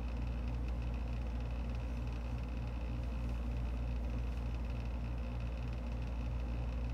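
Steady low droning hum with hiss, with a faint regular throb in it and no single events.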